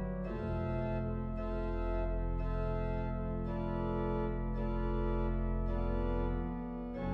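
Organ music: sustained chords over a deep pedal bass, the harmony changing about once a second, with a brief drop in level near the end.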